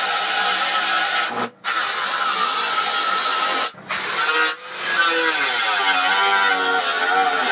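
Electric power tool running hard on steel, cutting out briefly twice, with its pitch wavering under load near the end.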